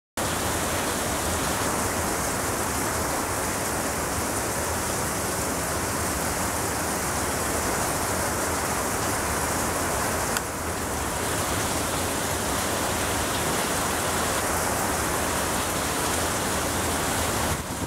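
Heavy rain pouring down in a steady, dense hiss, drumming on a corrugated sheet roof overhead and on the ground. A single brief click about ten seconds in.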